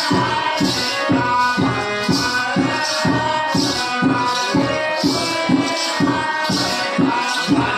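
Gondi folk music for the Gusadi dance: steady, regular drumming with a shaker-like rattle on the beat and held melody tones over it.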